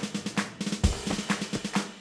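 A drum roll on snare drum with bass drum hits, a short percussion music cue: rapid strokes with one heavy bass drum hit about a second in, fading out near the end.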